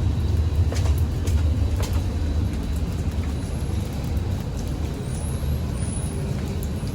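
A vehicle's steady low rumble, with a few light clicks.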